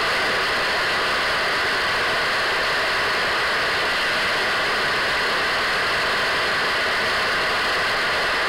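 Radio static from an untuned radio: a steady hiss with faint, steady whistle tones running through it.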